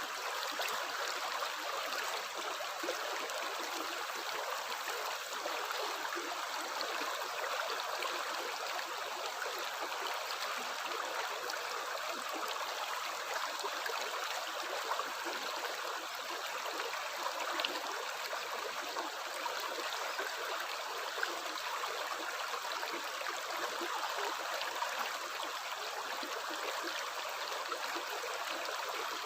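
Running water flowing steadily: an unbroken rush with many small splashes and trickles through it.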